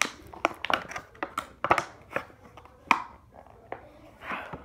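Irregular clicks, taps and short rustles of small hard objects and packaging being handled close by, with some crinkling.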